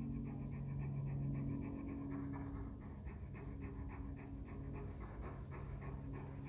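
Kangal–Malakli mix dog panting rapidly, about five breaths a second, over a steady low hum.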